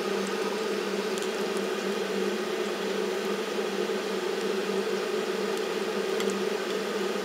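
A steady low mechanical hum with an even hiss over it, unchanging, with a couple of faint ticks.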